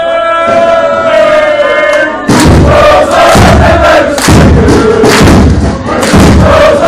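Crowd of football supporters singing and chanting in a small room: a held sung note for about two seconds, then loud rhythmic chanting in phrases with heavy thumping, clapping and stamping, the recording overloading.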